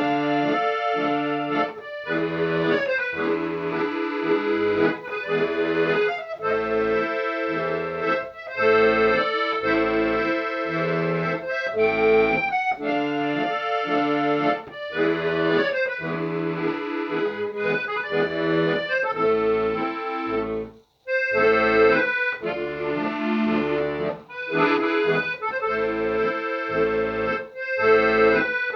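Instrumental accordion music: a steady rhythm of bass notes alternating with chords under a melody, with a brief break about two-thirds of the way through.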